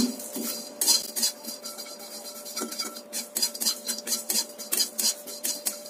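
Metal spatula stirring and scraping whole spices around a metal karahi, with irregular clinks and scrapes against the pan as the spices roast on low heat.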